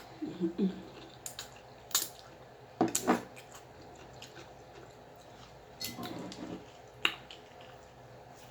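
Close-miked eating: wet mouth sounds and a handful of short, sharp clicks as someone chews a mouthful of spicy stew with pickle.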